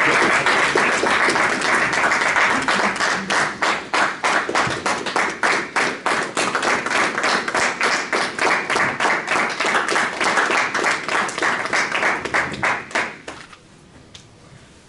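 Small audience clapping and applauding, a dense patter of individual claps that stops near the end.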